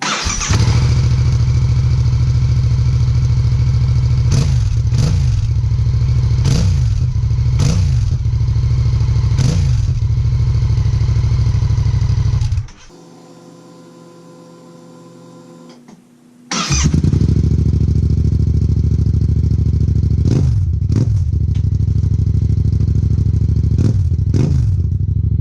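Yamaha MT-07's parallel-twin engine idling through an Akrapovic exhaust and being blipped about five times. The sound cuts off about halfway through, then returns for a second take with four more revs.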